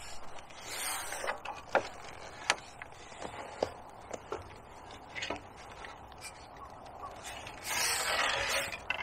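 Handling noise from a carbon fishing pole being worked in the hands while a hooked fish is played: scattered light clicks and taps, then a longer rubbing rustle about eight seconds in as the pole slides.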